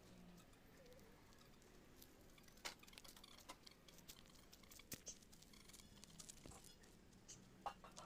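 Near silence: faint room tone with a few scattered soft clicks and taps.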